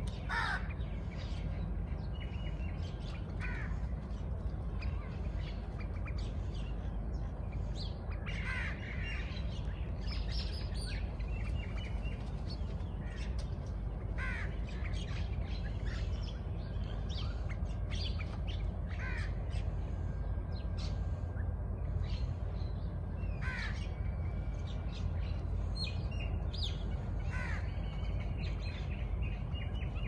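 Birds calling: a short call repeated about every four to five seconds over scattered higher chirps, with a steady low rumble underneath.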